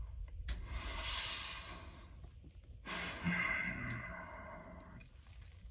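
A man's deep breathing: two long breaths, the second a sigh with a little voice in it, as he sits immersed in an ice bath.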